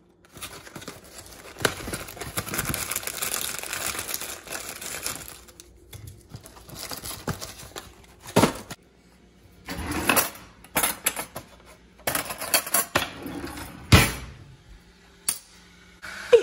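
Kitchen handling noise: a cardboard box of tea bags rustling as it is handled, then a series of sharp knocks and clicks as the box and a ceramic mug are moved and set down on a granite counter.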